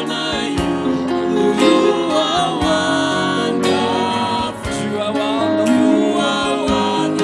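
Live gospel praise-and-worship music: a sung melody over guitar and other instruments, with percussion hits keeping a steady beat.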